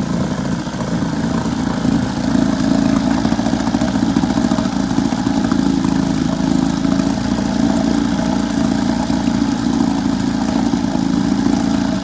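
Johnson 6 hp outboard motor running steadily, its level rising a little about two seconds in and then holding.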